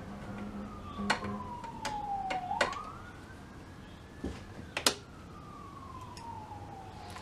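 An emergency-vehicle siren wails faintly, rising quickly and falling slowly twice, while several sharp clicks come from a vacuum-tube tester's switches and sockets being worked by hand.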